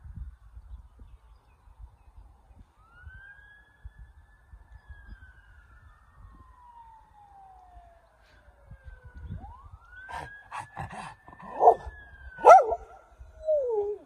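A police siren wails faintly in two slow rise-and-fall sweeps. About three-quarters of the way through, a Norwegian Elkhound joins in with short, loud, wavering howls, the last one sliding down in pitch.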